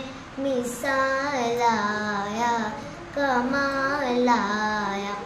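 A young girl singing a naat solo with no instruments, in three drawn-out phrases with gliding, held notes.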